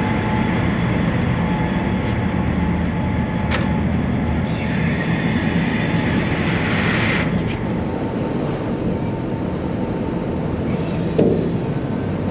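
Steady low engine rumble of a vehicle barge under way, with a faint steady whine over it. For about three seconds midway a hissing rush rises over the rumble, and there are a couple of light knocks.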